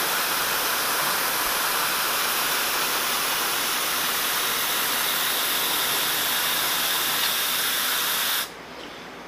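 Mist coolant sprayer on a milling machine hissing steadily as it blows an air-and-coolant mist at the cutter. It cuts off abruptly near the end, leaving a quieter steady machine hum.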